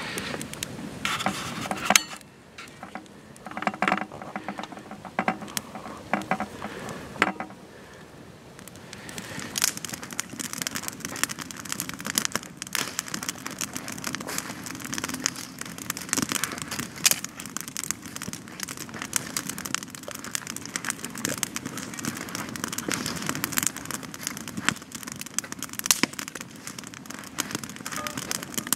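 Wood campfire crackling and popping with many sharp snaps. The crackling is sparse at first and grows dense and steady from about eight seconds in.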